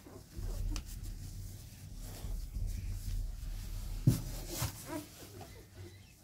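Newborn Labrador puppies in a cardboard box give faint squeaks while a hand moves one of them, rustling the newspaper bedding. There is a sharp knock against the box just after four seconds in.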